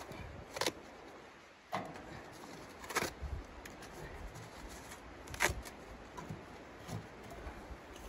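Cardboard being handled and pushed into the firebox of a small steel wood stove: soft rustling broken by about five sharp, short sounds.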